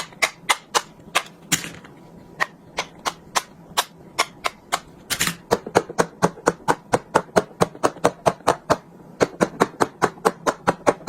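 Silicone push-pop fidget toys (poppets) having their bubbles pressed through one after another, a quick string of sharp pops. The pops speed up to about four a second about halfway through.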